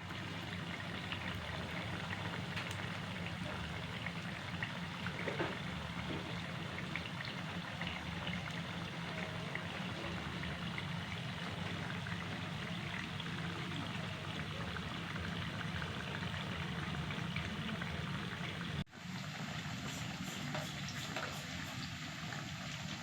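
Vegetable-and-flour batter fritters deep-frying in hot oil: a steady sizzle with fine crackles. It drops out for an instant about three-quarters of the way through, then carries on.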